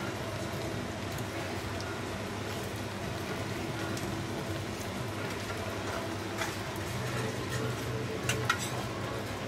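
Steady background hiss with a low hum, as at a working food stall, and a few light clicks near the end.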